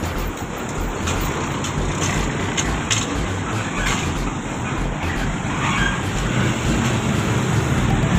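Road traffic passing close by: cars, motorcycles and trucks driving past, a steady rush of engine and tyre noise.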